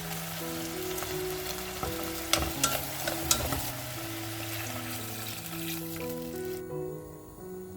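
Food sizzling as it fries in a pan, with a few sharp clacks of a utensil against the pan about two to three seconds in. The sizzling cuts off abruptly near the end, leaving soft background music with slow held notes.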